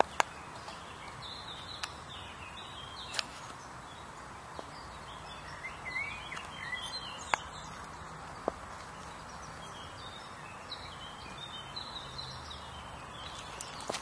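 Outdoor ambience: a steady background hiss with small birds chirping on and off, and a few single sharp clicks.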